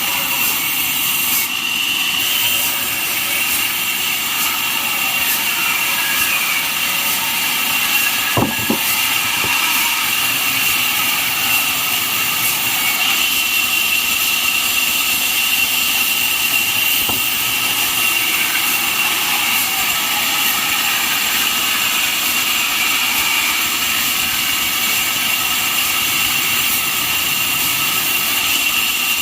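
Band sawmill running steadily: a continuous machine noise with a constant high-pitched tone. There is one brief knock about eight seconds in.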